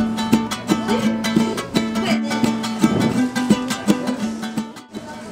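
Background music: a Latin-style piece led by plucked string instruments, with quick, evenly spaced plucked notes, getting quieter near the end.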